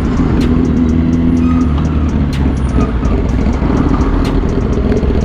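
Motorcycle engines running through traffic, including a sport bike fitted with an SC short-can exhaust: a deep, drum-like drone with sharp pops and crackles a few times a second.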